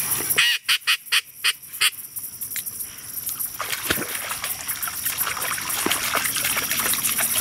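A quick run of about six loud duck quacks, spaced a fraction of a second apart, starting about half a second in. After that comes a splashing, rustling haze that grows louder as a Labrador retriever wades through shallow water and dead weeds on a retrieve.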